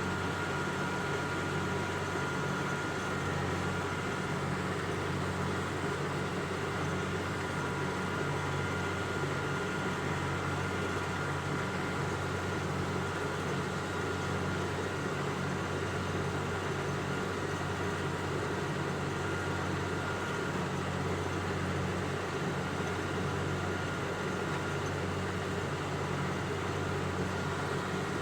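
An engine running steadily, with a thin high whine over it that fades out about twenty seconds in.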